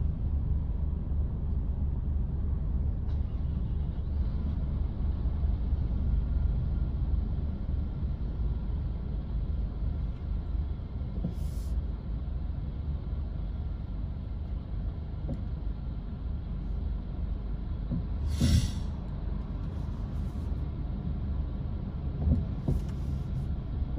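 Steady low engine rumble heard from inside a car's cabin while it waits behind a MAN coach. A few short, sharp hisses of air come from the coach's air brakes, the loudest about two-thirds of the way in.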